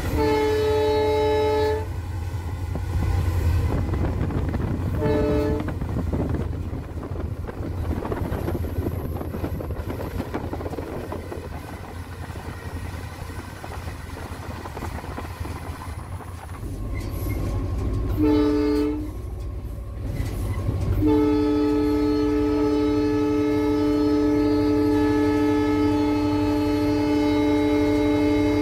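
EMD GT46PAC (WDP4) diesel-electric locomotive's air horn, heard from inside the cab over the steady rumble of the engine and wheels. It gives a blast of about a second and a half, a short toot around five seconds in, another short blast, then a long blast starting near the end and held on.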